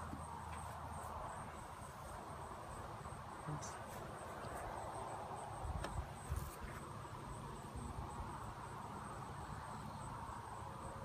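Honeybees buzzing over an open hive, a steady hum, with a few light knocks about six seconds in.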